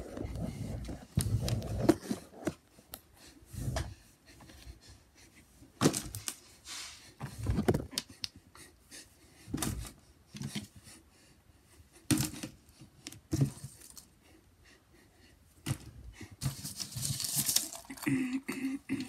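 Intermittent handling noise close to the microphone: scattered knocks, clicks and bumps with quiet gaps between, and a burst of rustling about two seconds before the end.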